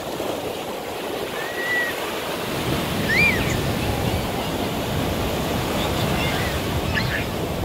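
Ocean surf breaking and washing over shallow sand, a steady rush of foam and waves that swells fuller about two and a half seconds in.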